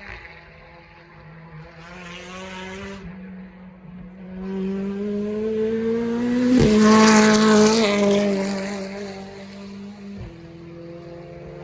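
Turbocharged BTCC touring car approaching and passing at speed: its engine note climbs in pitch and loudness, drops suddenly in pitch as it goes by about six and a half seconds in, and then fades away.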